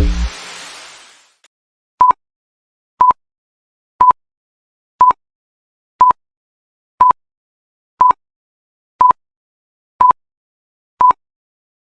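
Dance music cuts off and its tail fades, then an electronic interval timer counts down a rest between exercises. It gives ten short, identical beeps, one a second.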